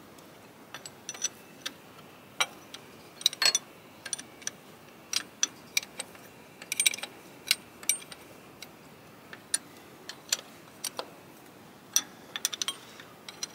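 Hand tools working on a diesel fuel pump's mounting bolts: a socket ratchet clicking and a steel spanner clinking, in irregular sharp clicks with a few quick runs of ratcheting.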